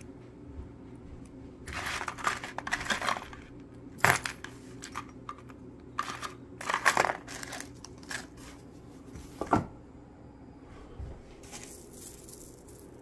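Costume jewelry (metal chains, brooches and beads) clinking and rattling in a cardboard box as it is picked through, in several short clusters of small clicks. Near the end, tissue paper rustles as a wrapped piece is lifted out.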